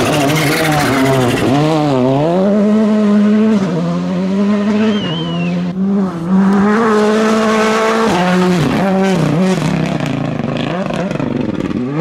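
Rally cars at full throttle on a gravel stage, one after the other: a Volkswagen Polo GTI R5, then after a cut about six seconds in a Hyundai i20, each turbocharged four-cylinder revving hard, with quick swoops in pitch as the driver lifts off and changes gear.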